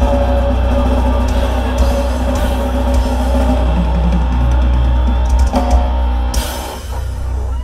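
Metal band playing live: distorted electric guitars and bass over drums. About six seconds in a cymbal crash rings out and the band's sound begins to die away, as at the end of a song.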